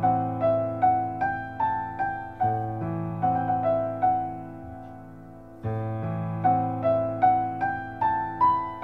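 Background piano music: a slow melody of single struck notes over held low chords. The phrase dies away about halfway through and then starts again.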